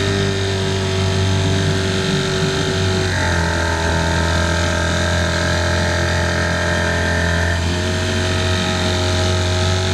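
Motorboat engine running steadily with a strong low hum, its pitch shifting about three seconds in and shifting back near eight seconds.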